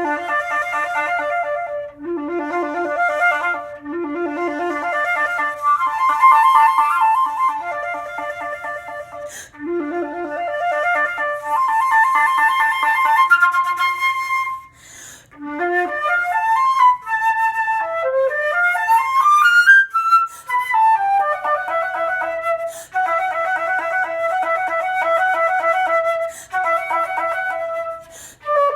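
A flute playing: phrases of repeated low and middle notes broken by short gaps, then fast runs sweeping up and down through the range near the middle, before returning to repeated notes.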